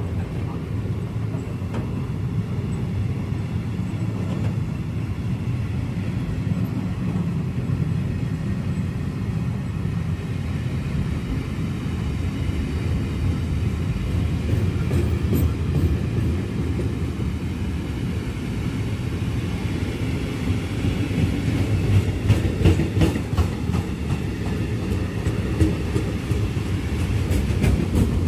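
Wagons of a long freight train rolling past: a steady rumble of steel wheels on rails, with clicking wheel beats over the rail joints that come more often in the second half.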